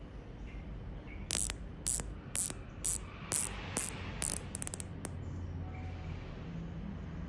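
Rotating dive bezel of a Sunrex Anemone chronograph turned by hand: sharp ratchet clicks about half a second apart, then a quick run of clicks near the end, stopping about five seconds in.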